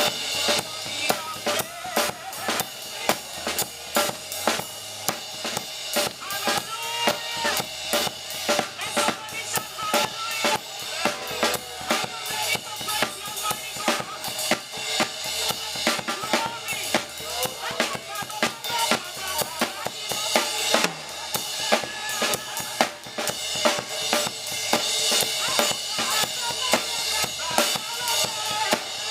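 Live church praise band music led by a drum kit playing a steady beat, with other pitched parts over it.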